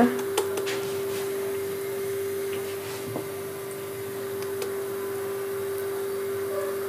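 A steady machine hum at one fixed pitch, with a few faint soft clicks and taps.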